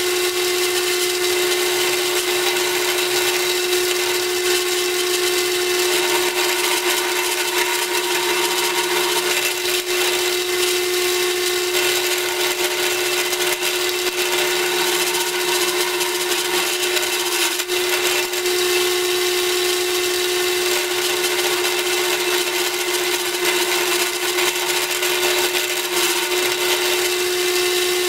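Drill press running with an end mill taking light side-milling passes in steel: a steady motor whine over a constant rushing cutting noise.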